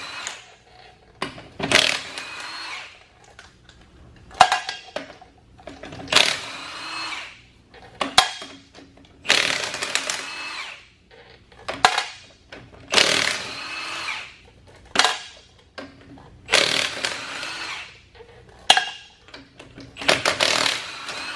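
Cordless impact wrench hammering on a pickup's wheel lug nuts in repeated short bursts, about one every two seconds, each with a rattling whine as it spins a nut. The nuts are being taken off so the wheels can come off for a tire rotation.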